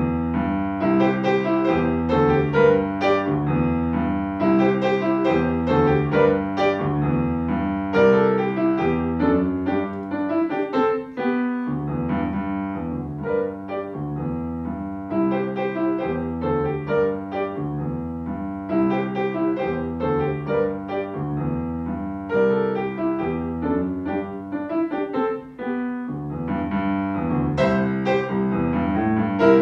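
Steinway & Sons grand piano played solo: a beginner-level recital piece, notes following one another steadily, with a short break about a third of the way through and a brief dip near the end.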